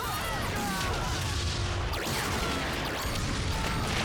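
Action-show sound effects of a barrage of explosions and blast impacts, with several sharp hits about a second apart and falling, zapping whooshes between them.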